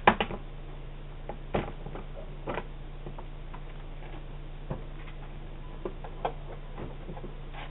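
Doorbell camera audio: a steady low electrical hum with scattered faint clicks and ticks at irregular intervals.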